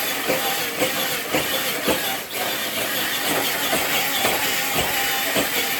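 Electric RC truck running, a steady hiss of motor, gears and tyres with irregular clicks and knocks.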